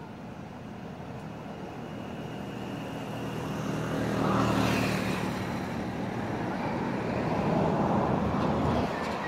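Engine of a passing motor vehicle, growing louder over the first four seconds, staying loud, then dropping off sharply near the end.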